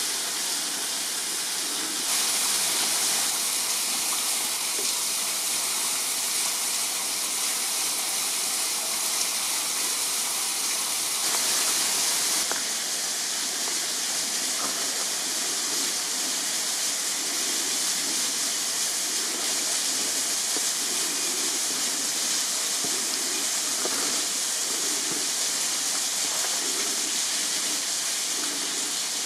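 Thin waterfall splashing steadily off a rock ledge onto the rocks below: an even hiss that grows a little louder from about two seconds in until about twelve seconds in.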